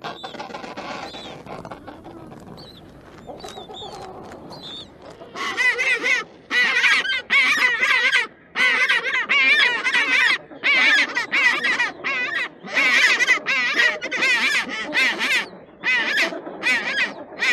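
Penguins calling: a few seconds of quieter calling, then from about five seconds in a long run of loud calls, each half a second to a second long and wavering in pitch, repeated with short breaks.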